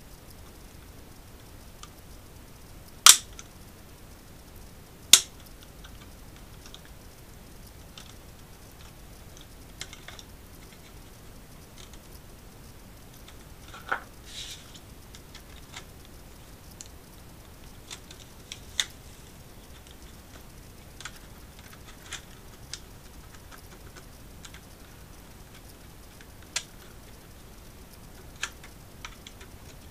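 Sharp clicks and taps of a Seagate Central network drive's plastic casing being handled and worked open: two loud snaps about three and five seconds in, then scattered lighter clicks.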